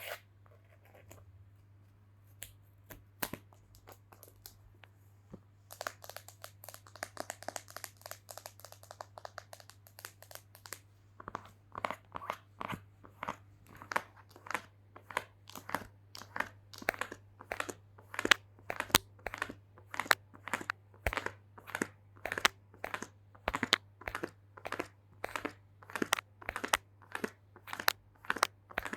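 ASMR knocking: sharp taps at about two a second, getting louder through the second half. They follow a few seconds of dense crinkly scratching.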